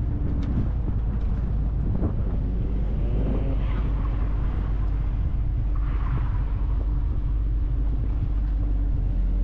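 Car engine running at low speed with a steady low drone as the car rolls slowly, with some wind noise on the microphone.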